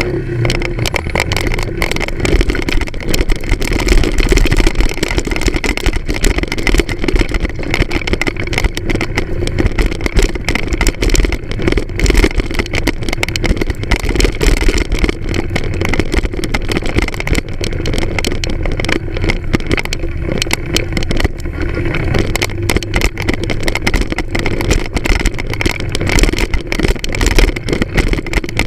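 Moped engine running as it rides over a bumpy dirt track, with wind and jolting noise on the bike-mounted camera's microphone.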